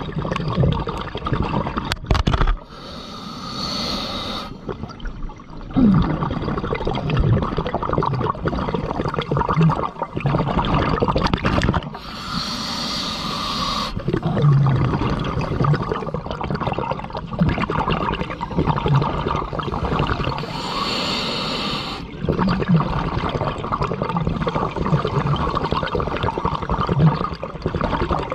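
Scuba diver breathing through a regulator underwater: three hissing inhales, each followed by several seconds of burbling, rushing exhaled bubbles.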